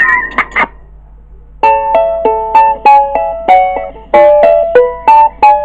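Music: a plucked string instrument picks out a short melody of single notes, two or three a second, starting about one and a half seconds in after a brief lull.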